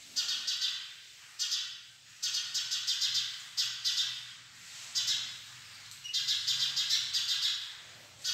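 Chalk writing on a blackboard: a series of short, scratchy, clicking strokes, one burst for each letter or stroke, each starting sharply and then fading.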